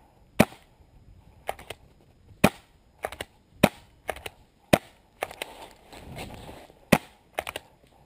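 Paintball markers firing single shots: about five loud, sharp pops spaced a second or more apart, with fainter pops, some in quick pairs, from further off in between.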